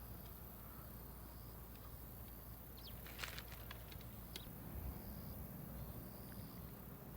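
Quiet outdoor ambience with faint, short high-pitched calls repeating every second or so, and a brief cluster of light clicks about three seconds in.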